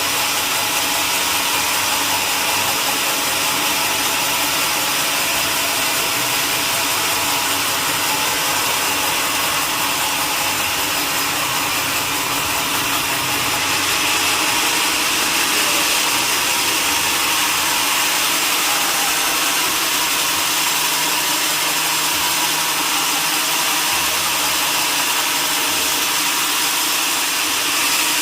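Sawmill saw cutting through a mahogany log, a steady, unbroken sawing noise.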